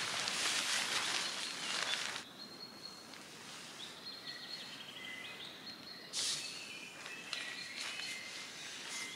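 Tarp fabric rustling as it is pushed up from underneath on a trekking pole, for about two seconds, then small birds chirping and singing, with another stretch of rustling starting about six seconds in.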